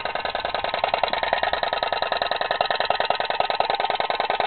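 Tin toy putt-putt (pop-pop) boat running on its candle-heated steam engine: a rapid, even popping that gets a little louder about a second in.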